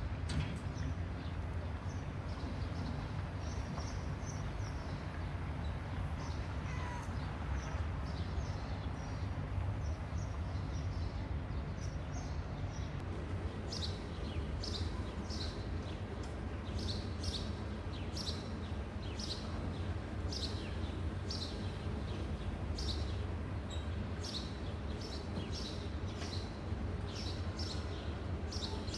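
Small birds chirping: short high chirps, sparse at first and then coming in quick runs from about halfway through, over a steady low background rumble.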